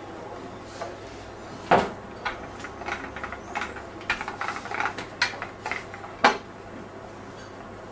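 Wooden rolling pin knocking and clacking on a floured granite counter as pizza dough is rolled out: a loud knock under two seconds in, a run of smaller knocks, and another loud knock a little after six seconds.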